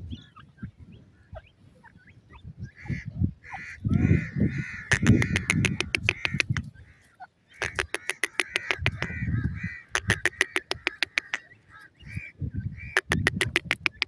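Francolins calling: four runs of rapid sharp clicking, about eight clicks a second, over a steady chattering call, with low rumbling noise in between.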